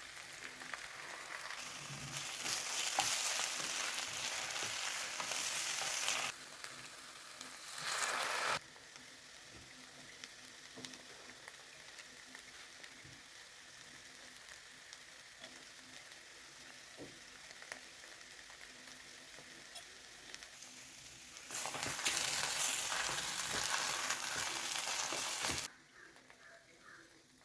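Food sizzling in oil in a hot pan. The sizzle is loud for stretches of a few seconds and drops abruptly to a quieter sizzle between them, with a few faint crackles.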